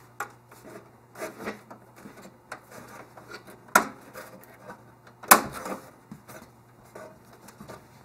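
Sheet-metal I/O shield being pushed into a computer case's rear opening: scattered light clicks and knocks, with two sharper snaps about four and five seconds in as its edges clip in.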